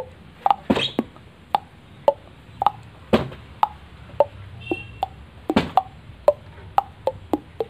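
Hollow, pitched tocks made by tapping the throat and cheeks with the mouth held open, imitating a kentongan bamboo slit drum beating a ronda night-watch rhythm. The strokes come at a few different pitches, about two a second, in an uneven pattern.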